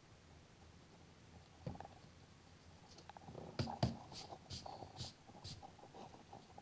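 Faint rubbing and scratching on drawing paper as an eraser and a pencil are worked over the sheet and a hand sweeps across it, with a cluster of louder brushing strokes a little past halfway.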